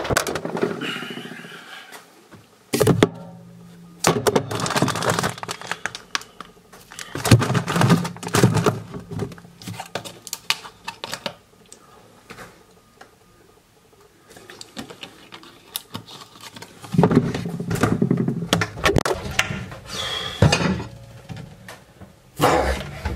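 Kitchen rummaging: fridge and cupboard doors opening and closing, with scattered knocks and thunks of things being handled, in clusters separated by quieter pauses.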